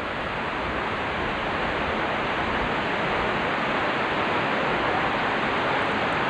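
Water of Niagara's Horseshoe Falls pouring over the brink, a steady, unbroken rushing.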